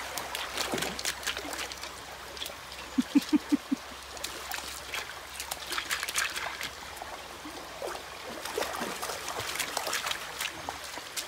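Dogs splashing and pawing in the shallow, pebbly edge of a river, with water trickling over stones and scattered small splashes and stone clicks throughout. About three seconds in there is a quick run of five short pitched calls.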